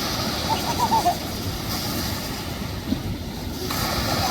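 Steady rushing noise of ocean surf with wind buffeting the microphone, and a few faint distant voices about a second in.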